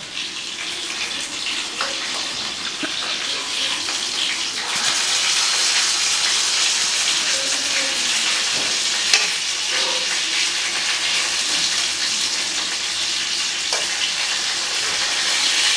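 Fish frying in hot mustard oil on a tawa: a steady sizzle that grows a little louder about five seconds in, with a couple of light clicks.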